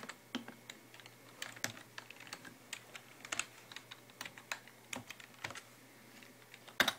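Typing on a computer keyboard while a password is entered: single key clicks at uneven intervals, with a louder pair of clicks near the end.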